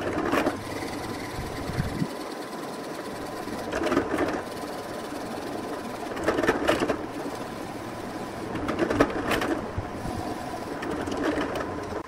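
A drill press runs with a steady motor whine while its bit bores into a hardwood block. The cutting grows louder several times as the bit is pushed down into the wood.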